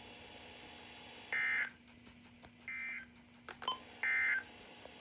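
Emergency Alert System end-of-message data bursts on NOAA Weather Radio: three short buzzy digital chirps, a little over a second apart, marking the end of the severe thunderstorm warning. A brief click comes between the second and third bursts.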